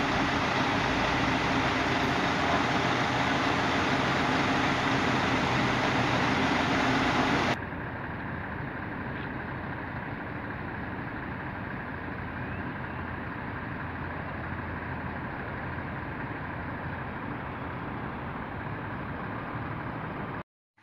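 Heavy diesel truck engines idling steadily. The sound drops suddenly to a quieter idle about seven and a half seconds in, and cuts out briefly just before the end.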